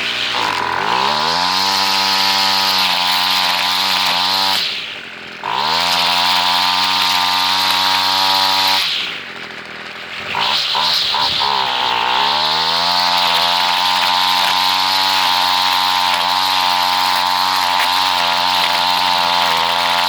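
Homelite two-stroke string trimmer with zip ties in place of trimmer line, running at high revs. It drops off throttle briefly twice, about five and nine seconds in, and revs back up each time.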